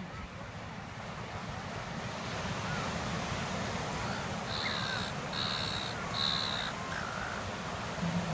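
Seagulls giving three short harsh squawks about halfway through, over the steady rush of surf and wind on the microphone.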